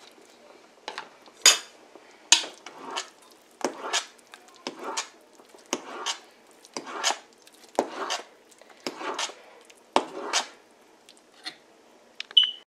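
A flat metal spatula stirring and mashing thick haleem in a large metal pot. It scrapes and clinks against the pot in a steady run of strokes, roughly one to two a second. This is the continuous ghota stirring that keeps the thick porridge from sticking as it cooks on high flame.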